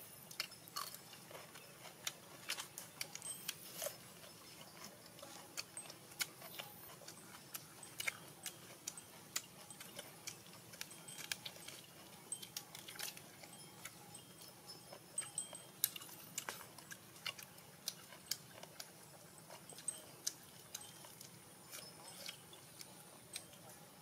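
Close-miked mouth sounds of a person eating roasted chicken and lettuce: irregular sharp chewing and lip-smacking clicks, several a second.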